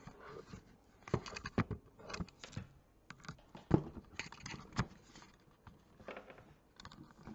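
Irregular light clicks and knocks, a dozen or so, with soft rustling between, from objects being handled close to the microphone; the loudest knock comes about halfway through.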